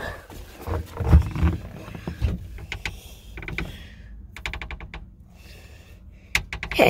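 A few dull thumps, then a round door knob being handled and turned, with runs of quick metallic clicks and rattles.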